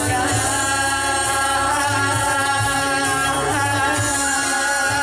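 Live band music, bass and acoustic guitar, accompanying several voices singing long drawn-out notes together.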